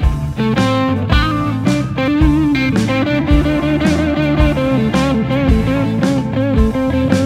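Blues instrumental: an electric guitar line with wavering, bent notes over a steady drum beat.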